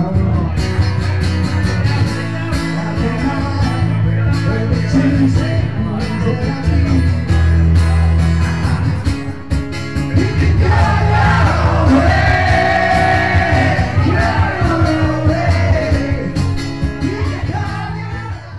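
Live acoustic duo playing a song through a small PA, guitar with a steady bass line and a voice singing over it. The singing comes in clearly about halfway through, and the music fades near the end.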